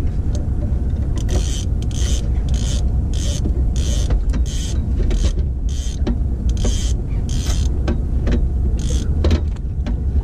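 Fishing reel whirring in a string of short bursts, roughly one every half second to second, as line is worked against a hooked sturgeon, over a steady low rumble.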